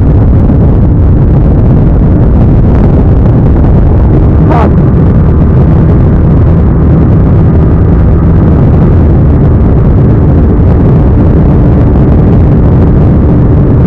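Yamaha R15 S's single-cylinder 150 cc four-stroke engine running steadily at high revs while the bike rides at speed, loud, with rushing wind.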